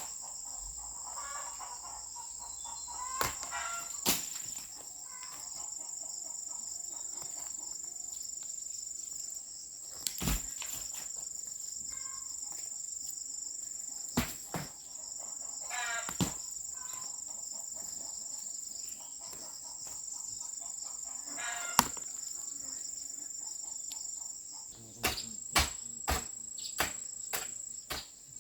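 Steady high-pitched drone of insects such as crickets or cicadas, with a chicken clucking now and then. Sharp knocks come every few seconds and then in a quick run of about six, two a second, near the end.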